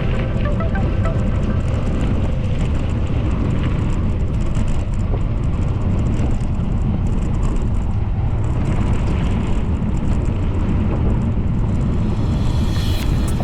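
Steady low rumble of noise with no pauses, the kind made by wind on the microphone or by road noise while moving.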